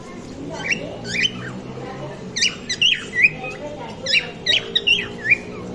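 A colony of caged cockatiels calling: a quick run of short, shrill chirps that sweep up and down in pitch, sparse at first and crowding together from about two seconds in.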